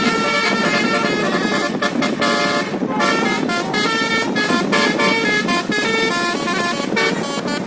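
Basuri multi-trumpet electric bus horn playing a telolet melody: a quick run of short, pitched horn notes stepping from note to note, with brief breaks between phrases.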